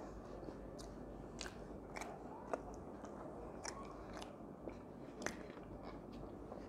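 A person chewing a mouthful of food with the mouth closed, making faint, irregular wet clicks and smacks.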